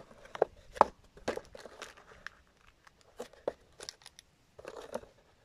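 Cardboard product box being handled and moved by hand: a string of light knocks, taps and scrapes, with a short crinkling rustle near the end.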